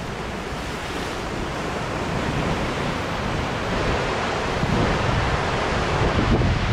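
Ocean swell surging and breaking over the rocks, foaming white water washing steadily through the gaps. Wind rumbling on the microphone builds near the end.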